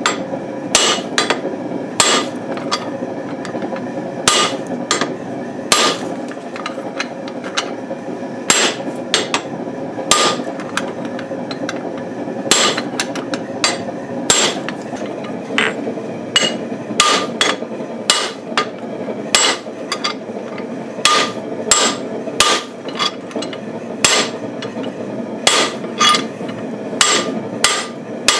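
Hand hammer striking the mild-steel top die of a guillotine fullering tool again and again, each blow a sharp metallic clank with a brief ring, in uneven runs of about one or two a second, driving fullers into a red-hot blank of axle steel for a claw hammer head. A steady rush from a propane forge burner runs underneath.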